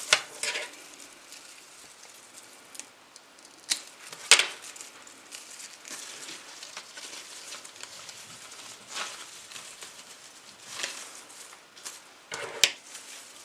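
Pruning shears snipping through foliage stems with a few sharp clicks, near the start, around four seconds in and near the end, with leaves rustling as the greenery is handled between cuts.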